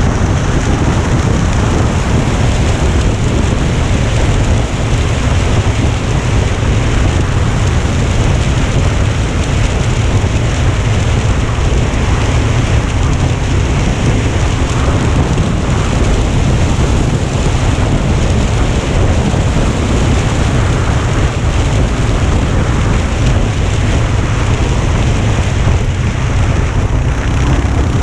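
Loud, steady wind noise buffeting the microphone during a bike ride: a constant low rumble with hiss over it.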